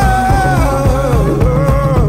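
Recorded music for the dance: a steady pounding beat under a single wavering melody line that slides down in pitch about a second in and climbs back near the end.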